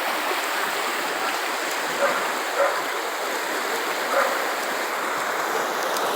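Floodwater of a swollen river rushing steadily past a bridge, the water nearly overflowing. Three short, sharp sounds stand out over it, about two, two and a half and four seconds in.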